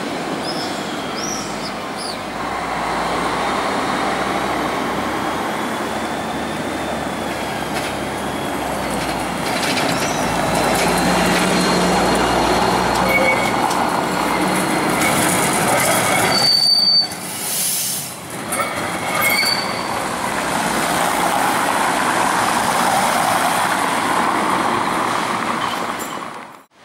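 Carris electric tram no. 563 running over street rails, steel wheels squealing in high whistling tones on the curves over a steady rolling rumble. The squeal comes and goes, with gliding tones near the start and in the middle.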